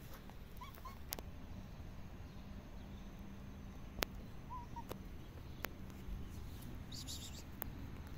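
Outdoor ambience: a steady low rumble with several sharp clicks, and two pairs of short, faint chirps, one about a second in and one about four and a half seconds in.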